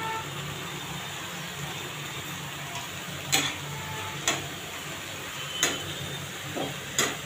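Fresh fenugreek leaves frying with a steady sizzle in an oiled non-stick pan while a spatula stirs them, knocking sharply against the pan four times in the second half.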